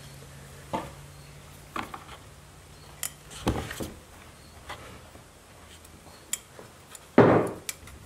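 Scattered light clicks and metal clinks of a screwdriver and parts on a string trimmer's metal muffler cover as a screw is turned, with a louder knock about seven seconds in.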